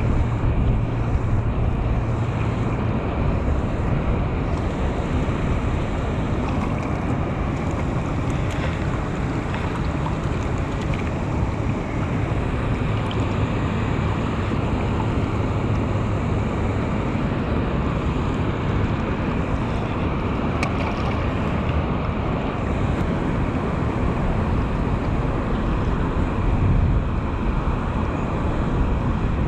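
Steady rush of water pouring out of a concrete spillway culvert and churning in the pool below, with wind buffeting the microphone.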